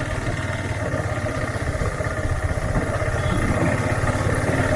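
Motorcycle engine running steadily while the bike is ridden, with a low, even rumble.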